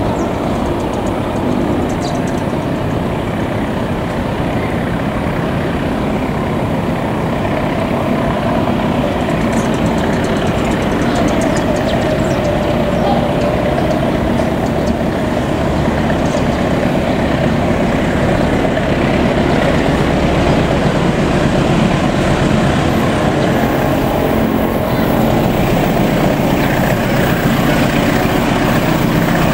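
KAI diesel-electric locomotive's engine running steadily as it pulls a passenger train away from the station, growing slightly louder as it approaches.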